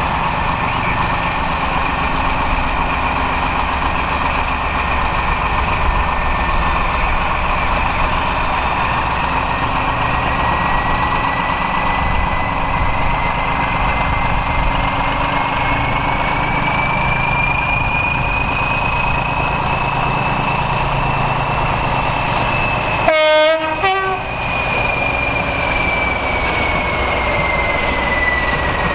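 Diesel locomotive engines working hard as a train of coaches pulls out, with a high whine that slowly rises and then falls. About three-quarters of the way through there is a short two-note horn blast.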